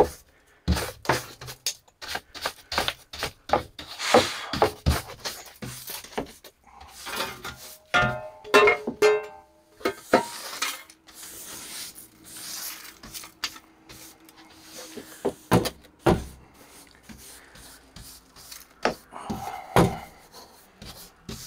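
Irregular scraping and rubbing with scattered knocks and clatter: loose rust and corrosion being swept and scraped off the steel floor inside a truck cab.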